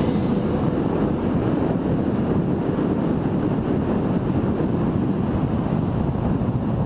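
Steady wind noise on the microphone of a paraglider's camera in flight: an even, low rush of air without pauses.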